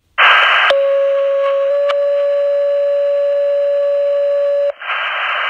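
Fire dispatch radio over a scanner: a burst of static, then a two-tone page, a steady tone of about a second that steps to a slightly different tone held for about three seconds, then static again. The sound is narrow-band and thin.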